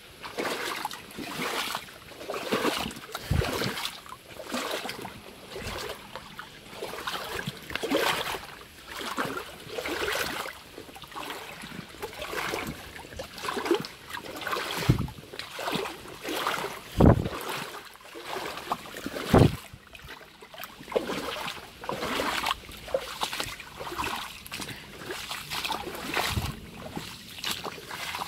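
Shallow water splashing and sloshing in repeated surges every second or so, with several heavier low thumps, the loudest about two-thirds of the way in.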